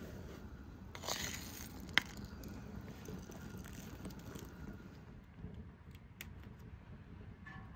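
Salt and then black peppercorns spooned into a large pot of boiling broth: a soft hiss about a second in, a sharp tap at about two seconds, and faint small ticks later as the peppercorns drop in, over a low steady rumble.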